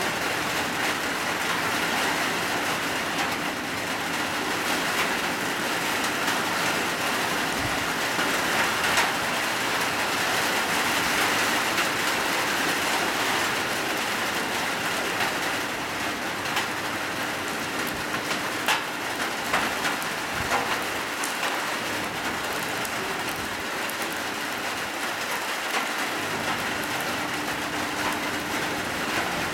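Hard rain falling steadily: a dense, even hiss, with now and then a sharper click of a drop striking close by.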